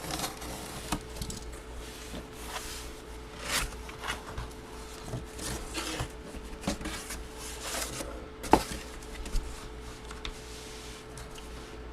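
Hands handling packaging during a box break: soft rustling and scattered clicks and knocks, with one sharp click about eight and a half seconds in, over a faint steady hum.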